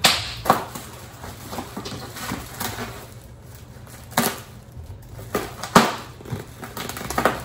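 Packaging being handled inside a cardboard shipping box: paper bags and bubble wrap rustling and crinkling, with a few short sharp knocks and crackles, the loudest about six seconds in.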